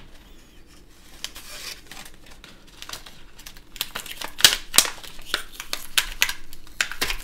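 Plastic toy packaging being handled and torn open, crinkling and crackling. The crackles grow louder and sharper about four seconds in.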